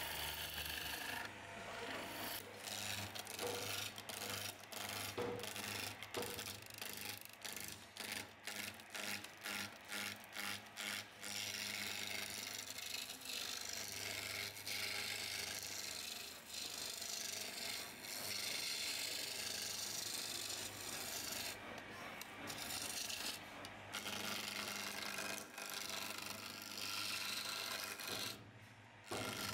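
Wood lathe turning: a hand-held chisel cutting a spinning wooden table-leg blank, a rasping, hissing scrape of shavings over a low steady hum. For the first ten seconds or so it comes in many short quick cuts, then runs in longer continuous passes, with a short break near the end.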